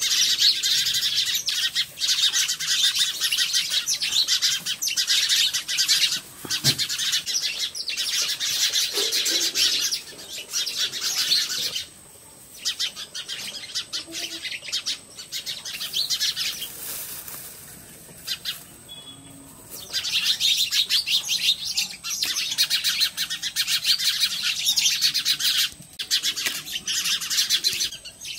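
Many small birds chirping in a dense, rapid chatter, with two brief lulls about 12 and 18 seconds in. A thin steady high tone runs underneath.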